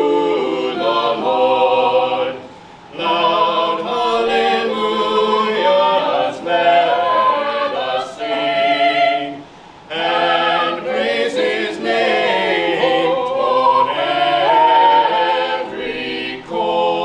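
A choir singing, in phrases broken by two short pauses, about two and a half and nine and a half seconds in.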